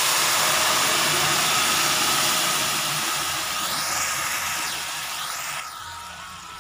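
Hot ghee with fried cashews and raisins sizzling hard as jackfruit payasam is poured into the pan: a loud, steady hiss that slowly dies down.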